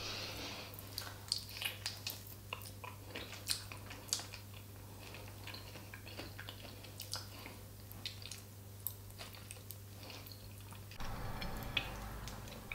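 A person chewing food, with scattered short mouth clicks. A low rumble comes in about eleven seconds in as more food is lifted to the mouth.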